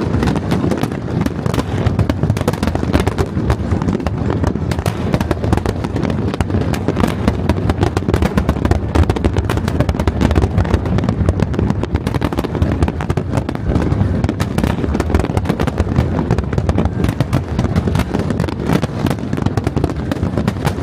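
Fireworks display recorded at the launch site: a dense, unbroken run of bangs and crackling, many rapid reports overlapping over a low rumble.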